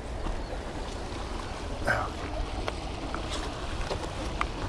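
Steady rush of river water flowing over rocks at a cascade, with a low wind rumble on the microphone and a few brief knocks.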